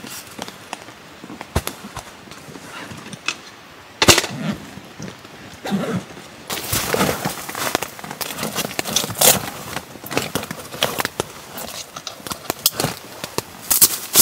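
Camping gear being handled: scattered sharp knocks and clicks, a loud one about four seconds in, then a busier run of rustling, clicking and clatter as gloved hands work at a nylon backpack.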